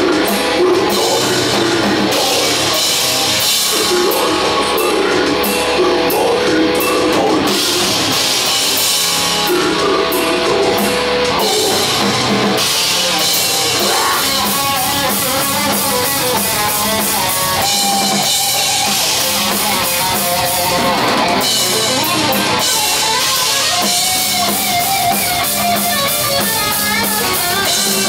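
Death metal band playing live at full volume: distorted electric guitar, bass guitar and a drum kit, heard through the club's PA.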